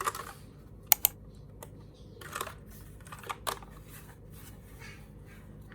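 Scattered plastic clicks and clacks from a Royal Kludge RK61 mechanical keyboard and its keycaps: a sharp pair about a second in, a few more later, and faint ticks between.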